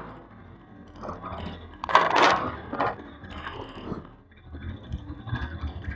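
Small pit bike crashing on grass: its engine note dies away, then scattered knocks and thuds, the loudest a sharp clatter about two seconds in.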